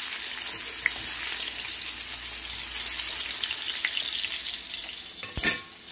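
Chicken thigh sizzling as it fries in a stainless steel skillet, a steady high hiss. A sharp metallic clank rings out about five seconds in, after which the sizzle is quieter.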